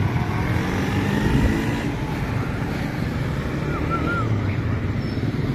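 Street traffic passing: a motorcycle and a car going by, their engines and tyres making a steady mix of engine hum and road noise.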